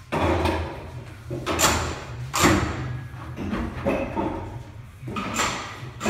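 Tire-changing equipment and tools in rapid use: four short, sharp noisy bursts of hissing and clatter over a steady low hum of shop machinery.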